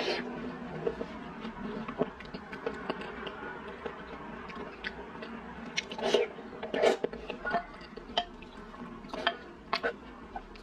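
Close-miked eating sounds: wet chewing and mouth smacks on a mouthful of boiled egg, with sharper slurps of sauce from a spoon, the loudest about six to seven seconds in.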